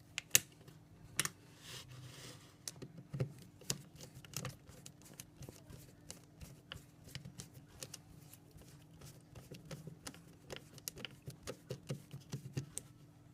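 Small, irregular clicks and taps of a screwdriver and small screws being worked into the plastic housing of a PAG PL96e battery link connector, with a couple of sharper clicks near the start and a short scrape about two seconds in.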